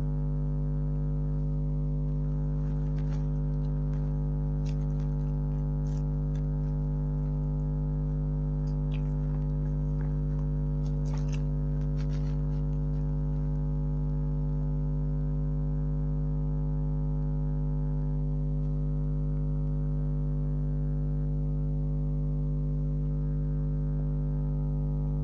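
Steady electrical hum with a buzzing edge, unchanging throughout. A few faint clicks come and go.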